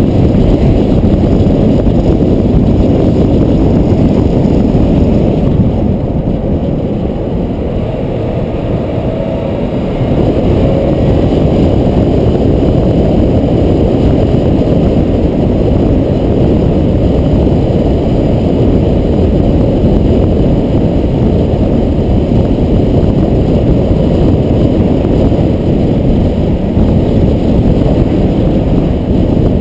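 Steady rumble of wind and road noise on the camera of a car driving fast downhill behind a longboarder, easing off for a few seconds about six seconds in.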